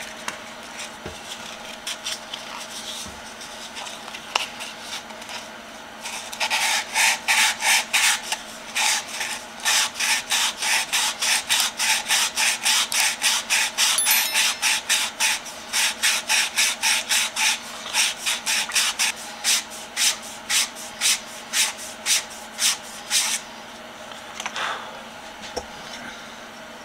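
120-grit aluminium-oxide sanding tape rubbed by hand over the end of a small turned wooden cylinder, in quick, even back-and-forth strokes a few a second. The strokes start about six seconds in and stop a few seconds before the end. The wood is being taken down so that the tight-fitting lid of the case will close.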